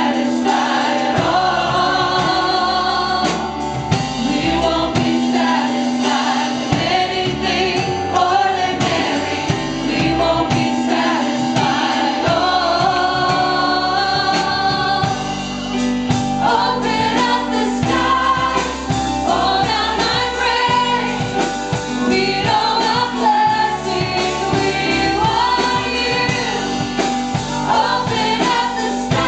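Choir singing a gospel worship song with instrumental accompaniment.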